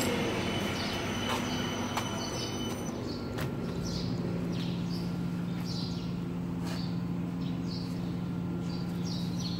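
Double-axis CNC wood lathe running after the cut with a steady motor hum that grows stronger about three and a half seconds in. Short high chirps repeat about once a second over it.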